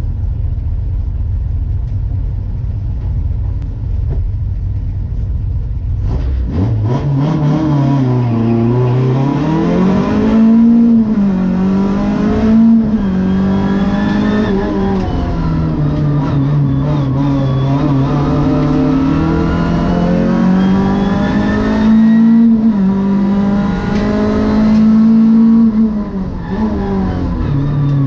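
Race car engine heard from inside the cabin: a low rumble for about six seconds, then the engine revs up hard, its pitch climbing and dropping over and over as the driver changes gear and lifts for corners.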